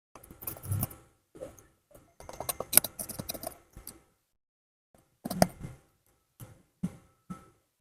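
Small plastic and metal smartphone parts and tools being handled during a teardown: irregular clicks, taps and light scrapes in short clusters with gaps between them.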